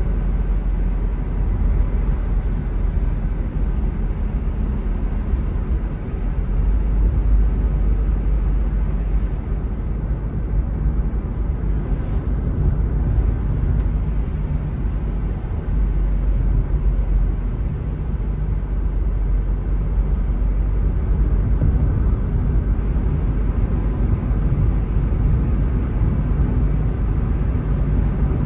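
Steady low rumble of a car driving along a paved street, mostly road and tyre noise.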